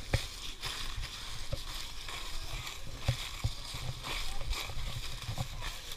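Footsteps rustling and crunching through dry leaf litter and twigs, with irregular soft thumps and the handling noise of a handheld camera, over a steady hiss.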